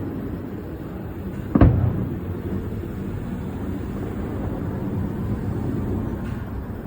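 A firework shell bursting with one sharp, loud boom about one and a half seconds in, over a steady low rumble.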